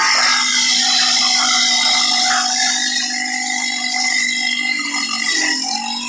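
Four-stroke ATV engine running at a steady cruise under a constant hiss of wind, its pitch wavering a little near the end.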